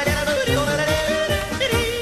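Upbeat German-language song with a voice yodeling over a steady beat.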